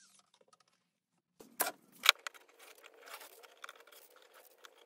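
Hands handling small items and a plastic wrapper on a workbench: near silence at first, then two sharp clicks about a second and a half and two seconds in, followed by scratchy rustling with small clicks.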